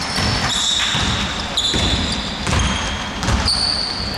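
Basketball being dribbled on a hardwood gym court, with irregular thuds and the high squeaks of sneakers on the floor.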